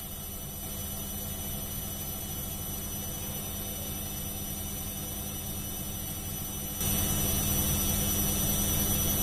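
Walton WWM-AFM70 front-loading washing machine in its final 1000 RPM spin-dry cycle: a steady motor whine over the hum of the fast-turning drum. It gets suddenly louder about seven seconds in.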